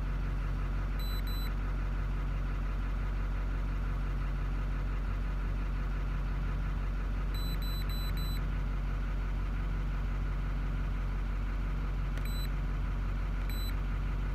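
6.6-litre LBZ Duramax V8 turbodiesel idling steadily, heard from inside the cab shortly after a cold start. Short high electronic beeps from a handheld OBD scan tool's keys: two about a second in, four in quick succession about seven seconds in, and two more single beeps near the end.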